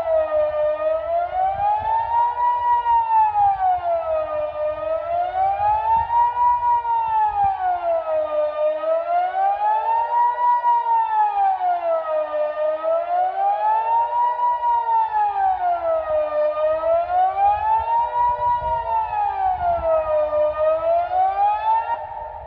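Kockum Sonics Delta 6 electronic civil-defence siren sounding the Swiss general alarm ("Allgemeiner Alarm"): a single tone, not a dual tone, rising and falling smoothly about once every four seconds. The signal calls on people to switch on the radio and follow the authorities' instructions. It cuts off near the end.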